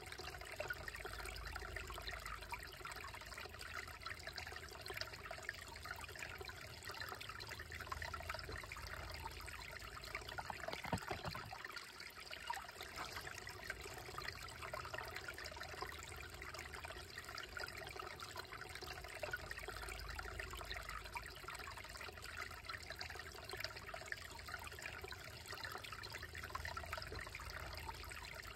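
Small, slow-moving creek trickling steadily over and between rocks.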